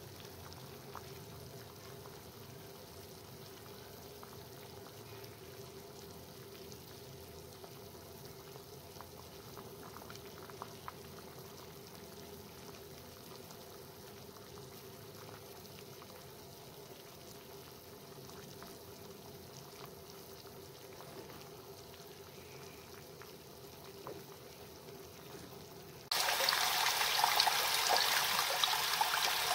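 Pot of water boiling around banana-leaf parcels of sticky rice, a steady faint bubbling with a thin hum under it. About four seconds before the end it cuts sharply to much louder water running and splashing into a steel bowl over a plastic container.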